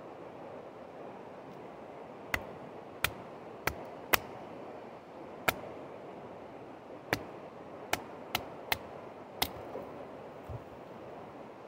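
Wooden baton striking the spine of a Bark River Mini Aurora knife driven into the top of an upright log to split it: about ten sharp wooden knocks, unevenly spaced, over some seven seconds. A steady rush of river and wind runs underneath.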